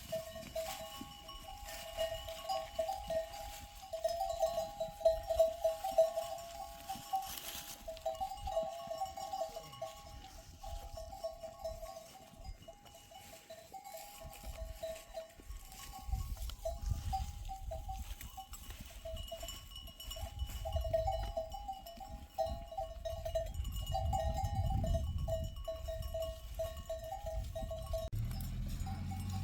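Bells on herded livestock ringing continuously in a flickering jingle. A low rumble builds underneath in the second half.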